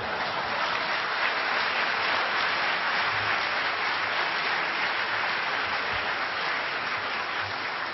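Audience applauding: a dense, steady clapping that eases slightly near the end.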